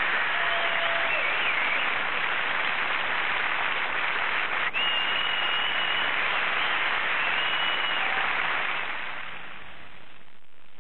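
Studio audience applauding and cheering, with a few long whistles, fading down near the end.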